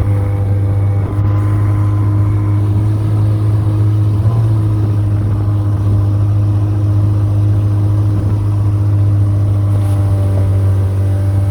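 Outboard motor of a small motorboat running at a steady speed, a loud, even low drone that wavers slightly about four seconds in.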